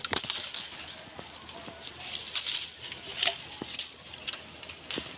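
Dry leaves and twigs rustling and crackling, with scattered snaps and clicks, densest around the middle.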